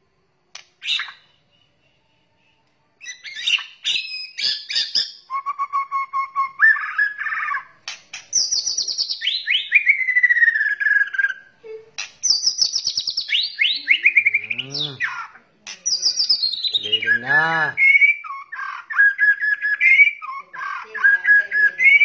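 White-rumped shama (murai batu) song, starting about three seconds in after a near-silent opening. It is a dense run of varied whistles, with held notes, fast falling whistled glides and quickly repeated notes. A harsh rattling call comes about two-thirds of the way through.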